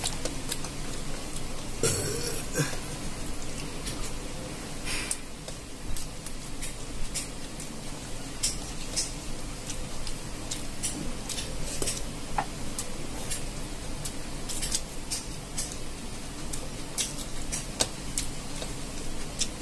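Someone eating rice pulao by hand, with frequent short wet clicks of chewing and lip-smacking and fingers working the rice on a plastic plate, over a steady fan hum.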